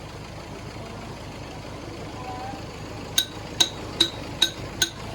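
An engine running steadily, and about three seconds in, five sharp ringing metallic clinks about 0.4 s apart, metal striking something hard.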